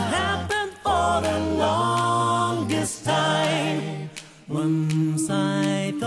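Background music of unaccompanied singing voices: held, wavering notes in phrases broken by short pauses.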